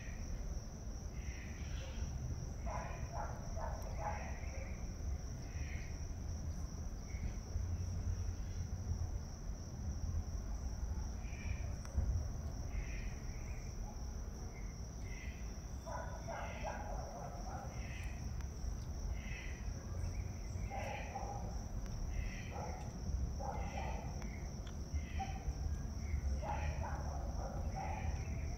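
Insects trilling steadily and high in a garden, with short chirps repeating about every second and a few clusters of brief calls, over a low steady rumble.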